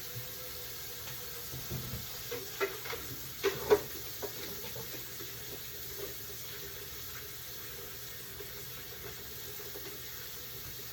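Kitchen work sounds: a steady background hiss with a handful of short clinks and knocks of cookware or dishes between about two and four seconds in, the loudest a sharp knock near four seconds.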